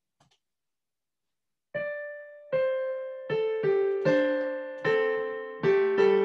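Digital piano keyboard playing slow music: after almost two seconds of near silence, notes and chords are struck a little under a second apart, each ringing and fading before the next.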